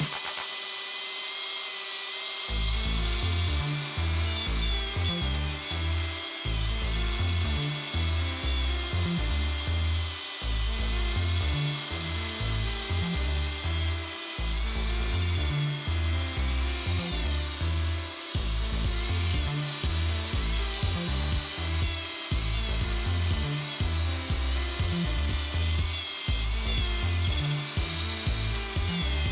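Electric disc grinder running, its whine wavering in pitch as it grinds metal, over background music with a steady bass beat that comes in about two seconds in.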